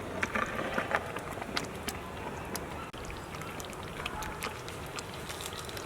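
Thick butter chicken gravy bubbling in a pot as it simmers, with irregular small pops and spits over a steady background hiss.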